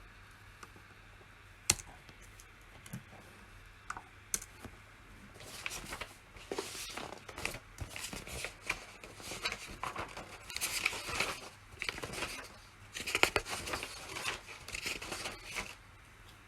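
Computer keyboard being typed on: a few single key presses, then quick bursts of rapid keystrokes in clusters.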